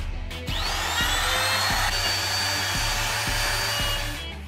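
Handheld Bosch Professional wood router spinning up about half a second in with a rising whine, then running steadily as it cuts the curved edge of a round linden-wood clock face, and stopping shortly before the end.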